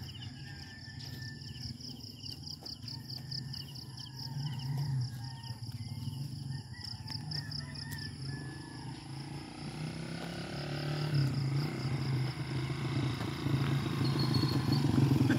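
Insects trilling in fast high-pitched pulses, over a low engine hum that grows louder over the last few seconds as a motor vehicle approaches.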